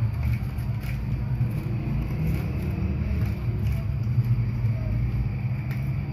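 Steady low rumble, with faint rustling and crinkling of the paper and foil layers of a cardboard cigarette pack being peeled apart by hand.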